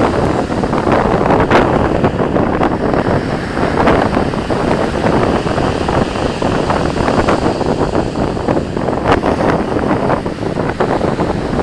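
Atlantic surf breaking and washing up a shingle beach, with wind buffeting the microphone.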